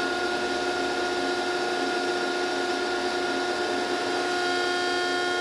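Hydraulic pump of a Landis Model 1R cylindrical grinder running, a steady machine hum with several steady whining tones, driving the table traverse while the grinding wheel is switched off.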